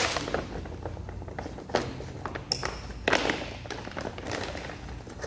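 Plastic packaging wrap crinkling and tearing as it is pulled off a sway bar, in irregular rustles with a few sharp clicks and light knocks.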